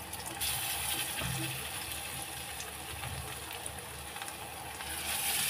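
Hot oil sizzling as battered pumpkin slices deep-fry in an iron kadhai. The steady frying hiss grows louder about half a second in and again near the end, as more slices go into the oil.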